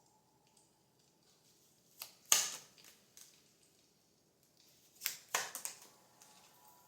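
Tarot cards being shuffled and handled: short crisp riffles, a pair about two seconds in and a quick cluster around five seconds in.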